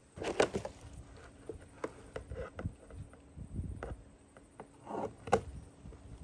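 Hands working a plastic NFT hydroponic channel and the basil plants in it, making irregular clicks, knocks and rustles. The sharpest knocks come near the start and about five seconds in.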